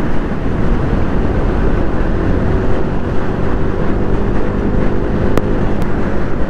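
KTM Duke 200's single-cylinder engine running steadily at cruising speed, mixed with heavy wind rush on the microphone. Two short clicks about five and a half seconds in.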